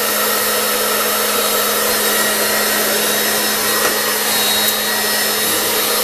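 Handheld hairdryer running steadily: a constant rush of blown air over a steady low motor hum.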